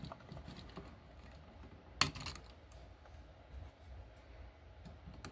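Faint clicks and taps of hand tools on copper wire as the wire is bent into a hook loop for a receptacle's terminal screw, with one sharper click about two seconds in.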